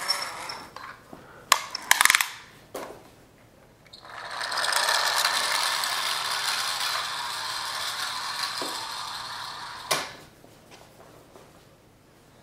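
Toy car's small geared motor whirring steadily for about six seconds, fading a little, then stopping with a click. A few sharp knocks of toys on the hard floor come a couple of seconds before it.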